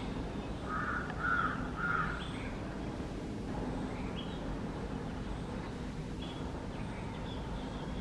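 Gulls calling over water: three loud, harsh calls in quick succession about a second in, then fainter, higher calls here and there, over a steady low rumble.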